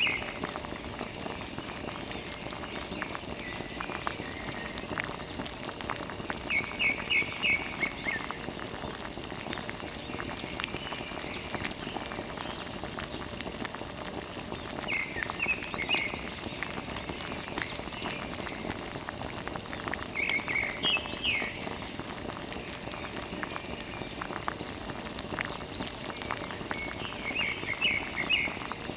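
Water from a thin hose off a mini water pump trickling and splashing onto a muddy toy motorcycle and wet sand, a steady patter of small drips. Every few seconds there is a short run of four or five high chirps.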